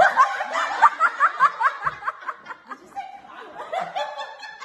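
A group of young people laughing hard together. A fast run of ha-ha bursts, about five a second, fills the first two seconds, then the laughter turns looser and more broken.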